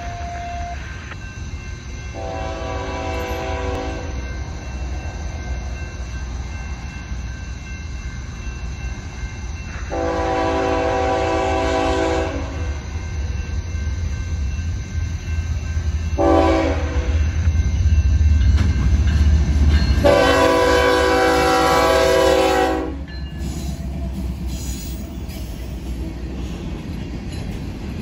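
The horn of a pair of BNSF GE ES44C4 diesel locomotives sounds the grade-crossing signal: long, long, short, long. Under it the locomotives' low rumble swells to its loudest around the last blast, then gives way to the rumble and wheel clatter of empty hopper cars rolling by.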